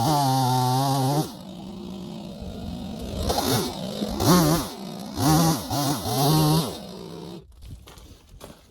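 Holzforma G255 45.4cc two-stroke chainsaw cutting wood: a sustained high rev, then about five short throttle surges rising and falling in pitch. The engine sound drops away about seven seconds in.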